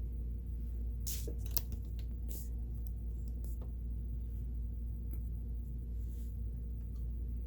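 Kenmore 17922 sewing machine's motor running with a steady hum, with a few light clicks and taps of the machine being handled, the loudest about a second and a half in.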